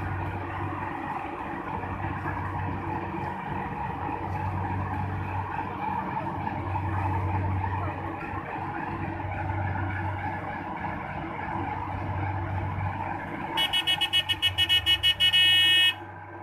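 Rice harvesting machine's engine running steadily. Near the end, a loud rapid beeping quickens into a continuous tone and then cuts off suddenly.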